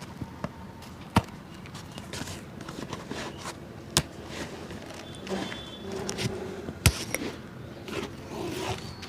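Hand work on an old shoe at a cobbler's stand: short scraping and rasping strokes, broken by three sharp knocks a few seconds apart.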